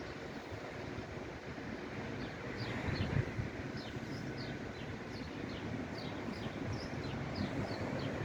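Freight wagons rolling past with a steady low rumble. Above it a bird repeats short falling chirps.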